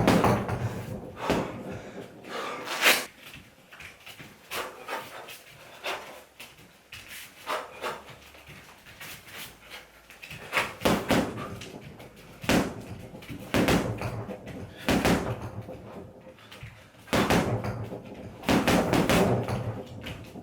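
Punches landing on a home heavy bag in bursts of quick combinations, each hit a sharp knock, with a sparser stretch of single hits in the middle.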